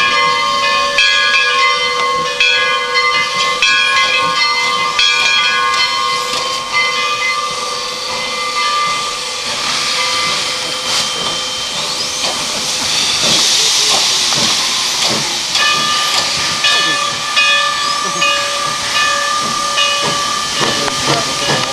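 Steam whistles of three lumber-company steam locomotives, a 2-8-2T rod engine and three-truck Climax and Heisler geared engines, blowing together. Several pitched whistles sound at once as a chord, with short repeated toots over held notes. About nine seconds in they stop and give way to a loud hiss of venting steam, then the whistles sound again some six seconds later.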